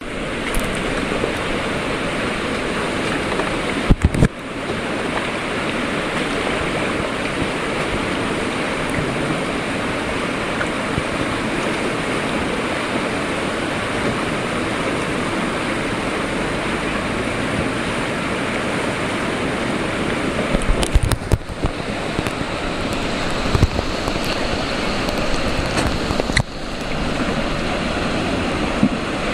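Rushing white water of a river rapid, a steady loud rush, with a few short thumps: one about four seconds in and several more in the second half.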